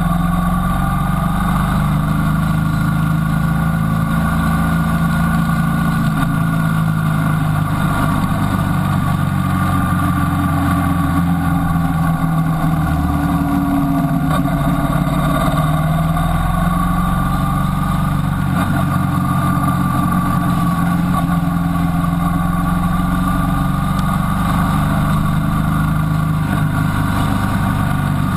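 Motorcycle engine running steadily at road speed, its pitch rising and falling gently with the throttle, under a low rush of wind on the bike-mounted camera.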